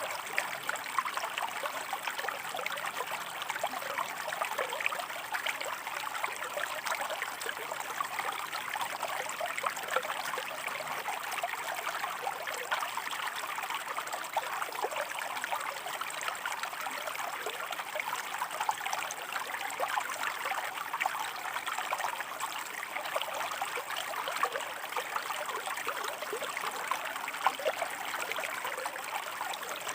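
Small river running over rocks: a steady, unbroken rush of water with many tiny splashes and trickles.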